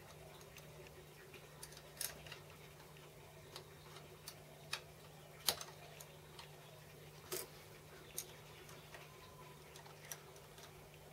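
Sparse, irregular light metallic clicks as a mini lathe's chuck and spindle are turned slowly by hand, over a low steady hum; the loudest click comes about five and a half seconds in.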